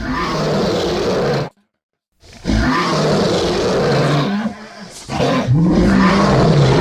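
Kaiju monster roar sound effect, edited together from Sharptooth and Gesura roars. A long rasping roar cuts off about one and a half seconds in. After a short silence, a second roar starts and sags briefly near the middle, then a third loud roar follows.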